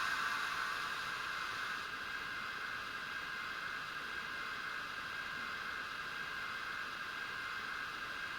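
Steady steam hiss from the sound decoder of a Fleischmann BR52 N-scale model steam locomotive. The hiss eases slightly in the first couple of seconds.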